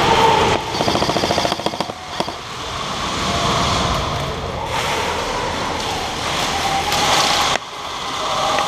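Airsoft gun firing a rapid full-auto burst lasting about a second, then a steady din of noise for several seconds, with a sudden dip near the end.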